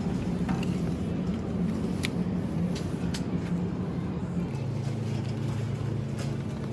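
A vehicle's engine running with a steady low hum whose pitch drops about four and a half seconds in, with a few faint clicks.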